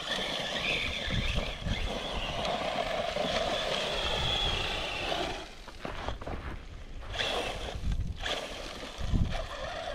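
Arrma Talion RC truggy's brushless electric motor whining, its pitch shifting with the throttle, with tyres scrabbling on loose volcanic gravel. The sound drops about five and a half seconds in as the truck moves off up the slope, then comes back in short bursts.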